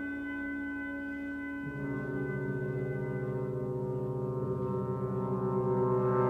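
Contemporary music for brass and percussion ensemble. A held, ringing chord carries on at the start; a couple of seconds in, low brass enter with a sustained chord that swells louder toward the end.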